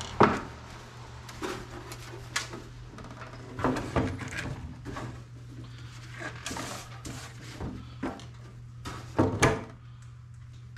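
Fiberglass panel being shifted and pressed down on a workbench over wax paper: scattered knocks and scrapes with some rustling. The loudest knocks come right at the start and about nine seconds in.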